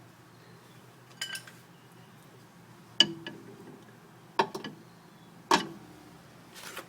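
Five sharp metallic clicks or clinks at uneven intervals, each with a brief ring, over a faint steady low hum.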